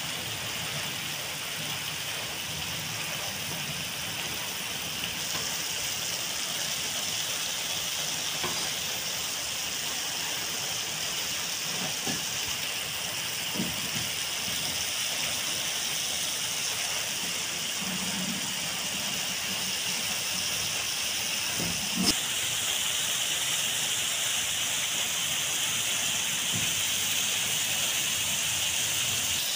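Squid in soy sauce sizzling and simmering in a wok: a steady sizzling hiss, with a few faint clicks and one sharper click about three quarters of the way through.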